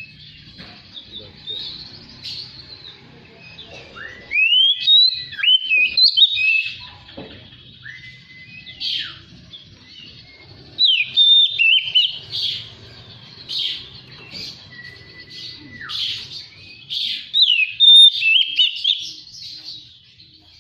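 Oriental magpie-robin singing: a run of varied, quick whistled phrases with sharp rising glides, broken twice by a long flat whistle held for about a second.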